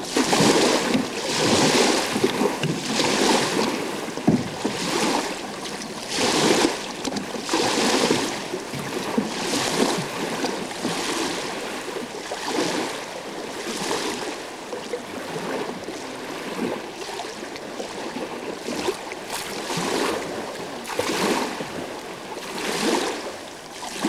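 Small waves slapping and splashing against a boat's hull, one surge every second and a half or so, with wind on the microphone.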